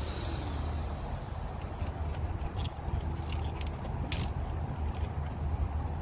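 A steady low rumble throughout, with a few light clicks and rustles as the leather seat cover and its fastenings under the seat are handled.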